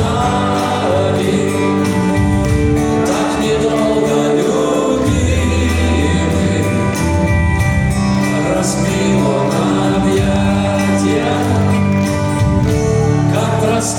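Rock band playing live, with a sung vocal line over sustained chords and a steady beat.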